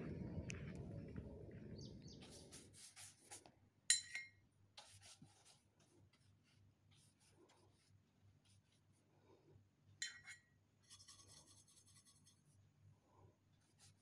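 Faint rubbing of a paintbrush on paper, with scattered light scratches and two sharper clicks, about four and ten seconds in. A low background noise fades out over the first three seconds.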